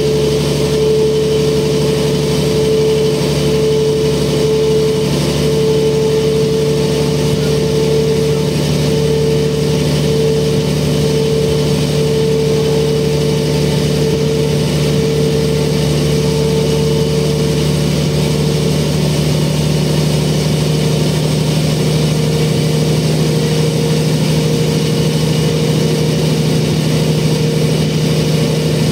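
Mercedes O405N city bus heard from inside the passenger cabin: its OM447h six-cylinder diesel engine and ZF 5HP-500 automatic gearbox running steadily. A strong steady high tone and a lower hum run throughout, with the high tone edging up in pitch in the second half.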